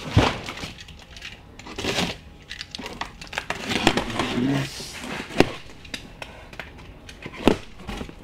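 Cardboard shipping box packed with arrow shafts being opened and rummaged: packaging rustling and crinkling, with scattered knocks and thumps, the sharpest just after the start, about five and a half seconds in and near the end.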